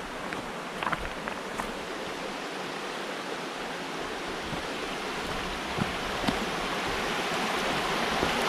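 Rushing water of a mountain stream, a steady hiss that grows gradually louder, with a few light clicks in the first two seconds.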